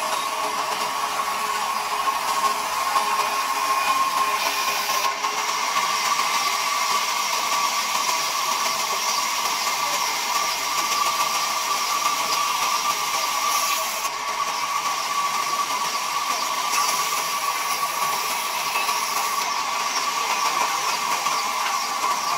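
Large vertical band saw running and cutting through a timber, a steady whine over the hiss of the blade in the wood.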